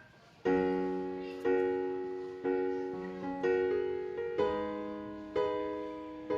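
Background keyboard music: chords struck about once a second, each fading away before the next, starting about half a second in.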